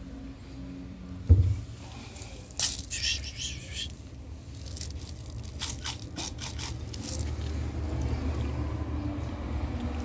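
Dry cat kibble poured from a plastic scoop onto a tiled step, the pellets rattling and clicking on the tiles in a few short bursts. A single thump comes about a second in, over a steady low rumble.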